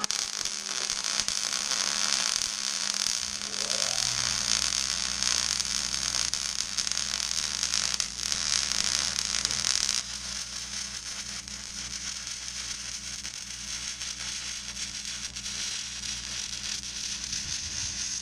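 Wire-feed welder arc running in one continuous weld on a lawn mower deck, a steady hiss that eases slightly about ten seconds in, with a low hum underneath from about four seconds in.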